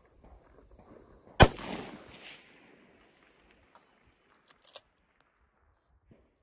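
A single 6mm Creedmoor rifle shot about a second and a half in, its report echoing back across open country for about a second. About three seconds later come two sharp metallic clicks as the rifle's bolt is worked.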